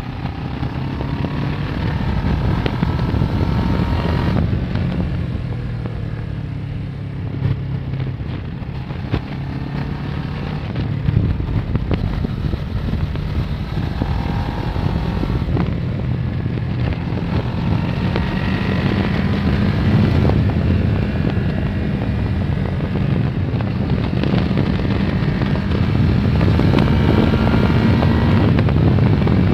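Kawasaki ER-6n's 649 cc parallel-twin engine pulling the bike along at road speed, its pitch climbing and dropping back a few times and rising again toward the end, with wind rushing over the microphone.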